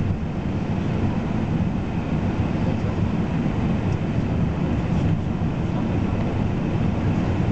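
Steady low rumble inside the passenger cabin of an Airbus A380 on final approach: its Engine Alliance GP7200 engines running at low approach power together with the rush of air past the fuselage.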